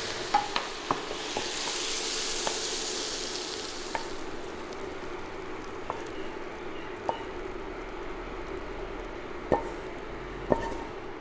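Onions sizzling as they stir-fry in a wok, with the spatula clicking against the wok now and then. The sizzle is strongest in the first few seconds and then settles lower.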